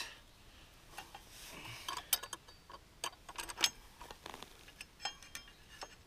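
Light, irregular metallic clicks and taps as a motorcycle's front brake caliper and its bolts are handled and fitted over the brake disc.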